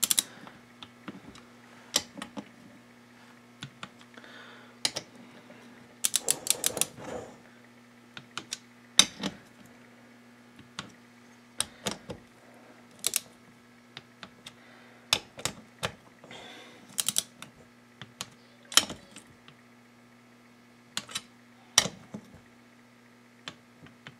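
Torque wrench clicking as the 8 mm crankcase bolts of a Kawasaki KX125 two-stroke engine are tightened in turn: sharp single clicks at irregular intervals, with a quick run of clicks about six seconds in.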